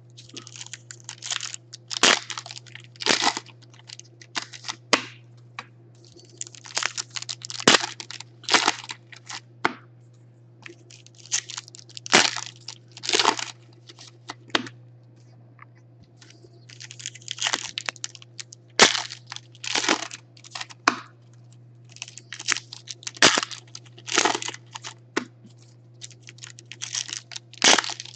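Panini Contenders Football foil card packs being torn open and their wrappers crinkled as the cards are pulled out: a run of irregular sharp crinkles and rustles, over a steady low hum.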